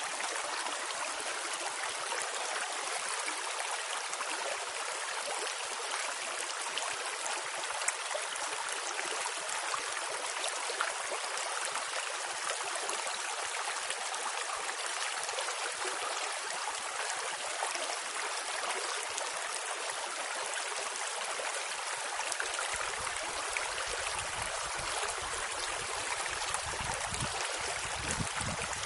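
Steady rush of flowing water, an even hiss with no breaks, with a low rumble joining about three quarters of the way through.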